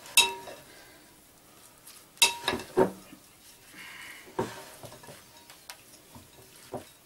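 Shredded carrots being stirred and tossed in a glass bowl with a wooden spoon: soft rustling broken by sharp knocks of the spoon against the glass, which rings briefly. The loudest knock comes just after the start, with a quick run of three about two to three seconds in.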